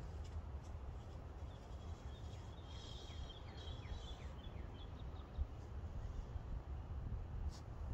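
Outdoor ambience with a steady low rumble. A songbird trills about three to four seconds in, and there is a run of short falling chirps. A single sharp snap comes near the end.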